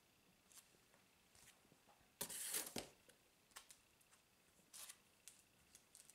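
Faint rustling and sliding of comic books in plastic bags as they are handled and set down, with a louder rustle about two seconds in and a few small clicks and taps after it.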